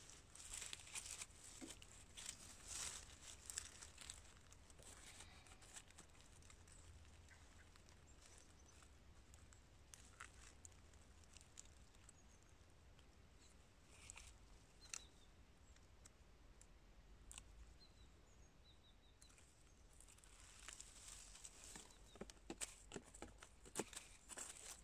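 Faint crackling and tearing of dry rotten stump wood and pine-needle litter as a gloved hand pries and digs into a decayed tree stump, with scattered sharp clicks. It comes in bursts over the first few seconds and again near the end, with a quieter stretch between.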